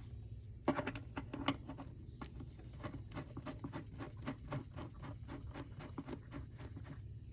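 Ratchet wrench clicking in quick, even ticks, about five a second, as the air filter box cover screws are driven back in, with a few sharper clicks near the start.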